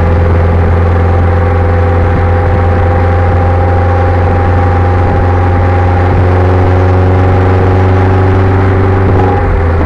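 Audi S3 8L's decatted 1.8-litre turbocharged four-cylinder (1.8T) running at steady revs, a loud, even exhaust drone under way, with the note changing briefly right at the end.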